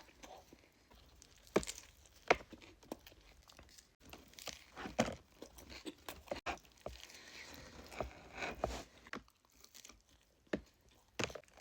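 Taco Bell food wrappers crinkling and tearing close to the microphone, in short spells, with scattered sharp clicks.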